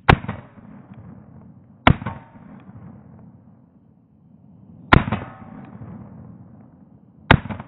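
Glock 23 pistol fired four times at uneven intervals of two to three seconds, each sharp shot followed by a short fading echo.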